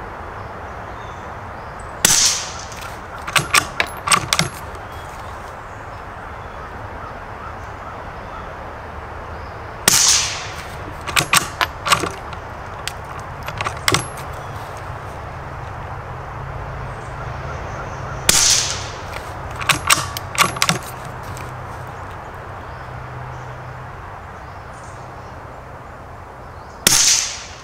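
Four shots from a Bergara BMR bolt-action .22 LR rifle firing subsonic CCI Suppressor ammunition, about eight seconds apart. After each of the first three comes a short run of clicks as the sticky bolt is worked to chamber the next round.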